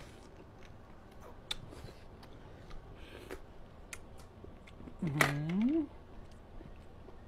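A person eating fresh blood cockles: slurping the meat from the shell, then soft chewing with scattered small clicks. About five seconds in comes one short, loud closed-mouth "mmm" whose pitch dips and then rises.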